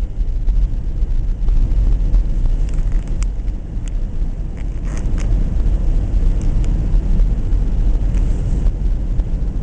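Car driving, a steady low engine and road rumble heard from inside the cabin, with a few faint clicks.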